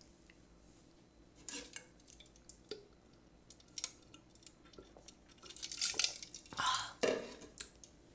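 A large clear plastic jar being lifted, drunk from and set back down on a wooden table: light clicks and knocks of the plastic, with drinking sounds and a louder stretch about six to seven seconds in.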